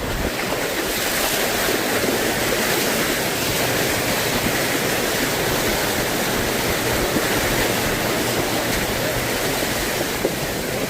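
Jeep Gladiator ploughing through a long mud puddle, muddy water rushing and spraying against the tyres, wheel wells and underbody in a steady loud wash.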